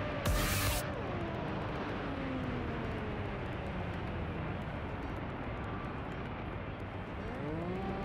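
Electric brushless motor and 8x7 propeller of an FPV race wing, heard from the onboard camera. About half a second in, a short blast of wind rush hits the microphone. The motor's whine then glides down in pitch as the throttle is cut, and rises sharply again near the end as power comes back on.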